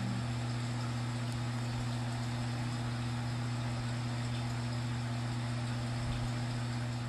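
Steady low electrical hum with an even hiss over it: background noise from a running appliance, with no sound from the foam rolling.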